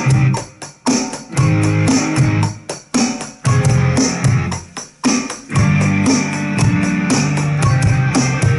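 Rock backing track with electric guitar and bass, with a drum part played along on a Roland electronic drum kit. There are steady beats, with a few brief breaks in the groove.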